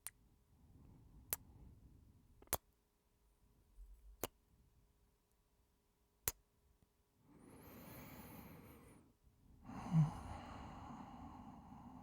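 Close-miked kiss sounds: five short, sharp lip smacks spread over the first six seconds. Then two long breathy sighs, the second with a brief low hum in the voice.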